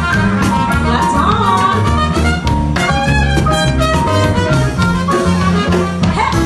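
Live jazz band playing a Latin samba tune, with trumpets and saxophone over an upright bass and drum kit.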